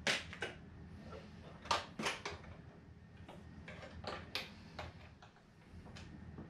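Irregular series of sharp clicks and taps from small hard parts being handled and fitted on a foam model-plane fuselage, loudest right at the start and around two seconds in.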